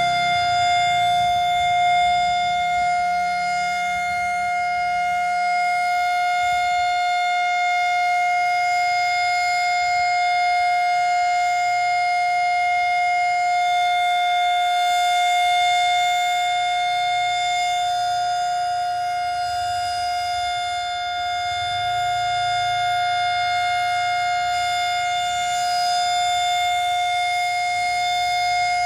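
Civil-defence warning siren holding one steady tone after winding up to pitch. It is the commemorative siren sounded to mark the moment of Indonesia's Proclamation of Independence.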